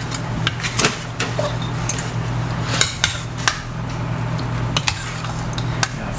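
Utensils clinking and knocking against a bowl and dishes in irregular sharp clicks, over a steady low hum.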